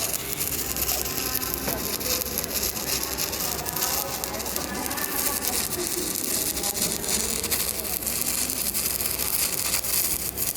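Electric arc welding crackling and sizzling steadily, a dense stream of fine pops.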